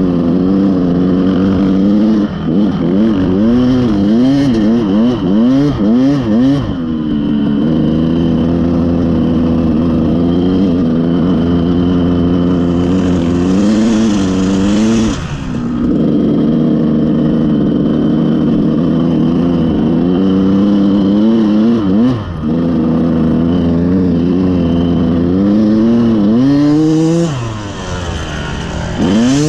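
Dirt bike engine running hard, its pitch rising and falling quickly as the throttle is worked, with long steady stretches at speed. The revs drop sharply a few times, about halfway through, around two-thirds of the way and near the end.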